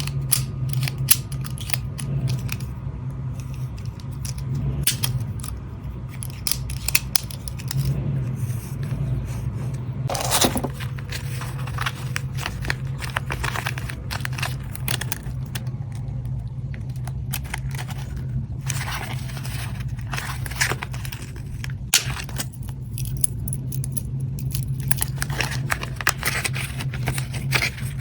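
Stationery items and their packaging being handled: scattered sharp clicks and taps of small plastic and metal parts, with short rustles, over a steady low hum.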